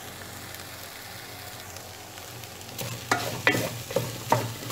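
Chopped herbs and leeks sizzling in a steel pot that is running dry at the bottom. From about three seconds in, a wooden spoon stirs and scrapes against the pot in several sharp strokes.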